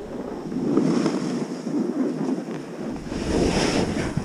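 Wind rushing over the camera's microphone during a fast downhill ride on snow, with the hiss of edges carving through the snow swelling twice, about a second in and again near the end.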